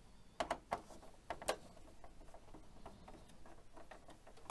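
A few light clicks and taps of a Phillips screwdriver and hands on the plastic case of an Epson XP-55 inkjet printer as a case screw is undone, about five in the first second and a half, then only faint handling noise.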